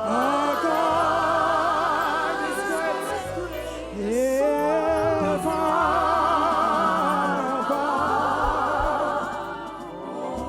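Gospel worship music: sustained wordless singing, held notes with vibrato that swoop up at the start of phrases, over a sustained keyboard bass.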